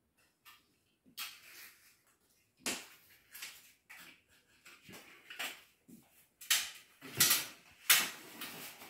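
Wallpaper being pressed and rubbed onto the wall with a plastic wallpaper smoother: irregular swishing and rustling strokes of the tool and hands on the paper, the loudest ones near the end.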